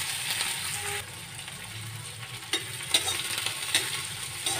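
Finely chopped onion sizzling in hot mustard oil in a metal kadai. The sizzle is strongest in the first second, then settles to a steady hiss. From about two and a half seconds in, a spatula stirring the onion gives a few sharp clicks and scrapes against the pan.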